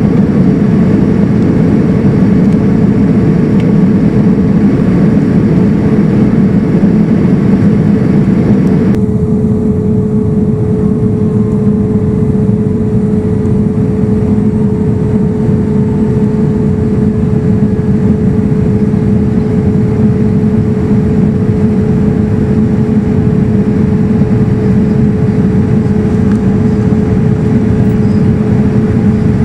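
In-flight cabin noise of a Boeing 787-9 heard from a window seat beside the wing: a steady rush of air and engine drone with a constant hum through it. The hiss thins abruptly about nine seconds in, then the drone carries on unchanged.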